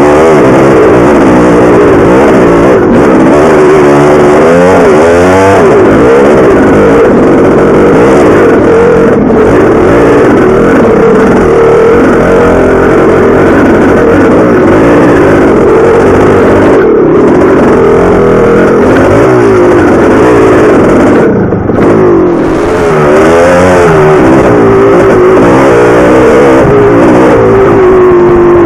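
1983 Maico 490's two-stroke single-cylinder engine being ridden hard on a dirt trail, revving up and down under throttle with the pitch rising and falling every second or two. The throttle is briefly chopped once, about three-quarters of the way through.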